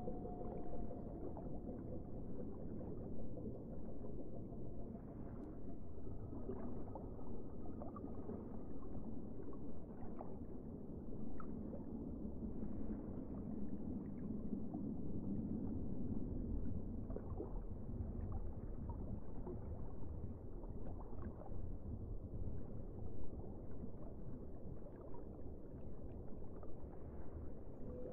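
Muffled underwater noise from a submerged camera: a steady low wash of water sound with scattered faint ticks and clicks.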